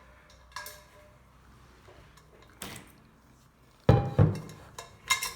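Two heavy thuds close together about four seconds in, then a few light clicks: mate-making vessels being handled and set down on a table after the hot water has been poured.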